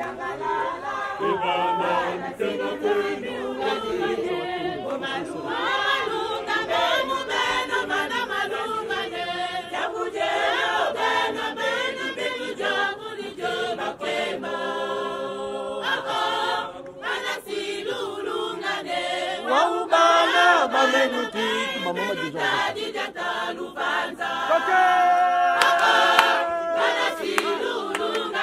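A group of women singing a church song together in chorus.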